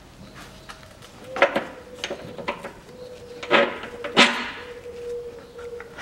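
Scattered metal clinks and knocks of a wrench and bolts on the lower engine mount (torque rod) of a Smart Fortwo 451 as it is bolted up by hand. There are about five sharp strikes between one and four and a half seconds in, the loudest near the middle.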